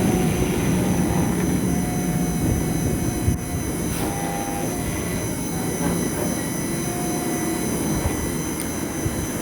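CNC spindle running steadily with a high-pitched whine as it engraves a brass plate, over a steady rumble.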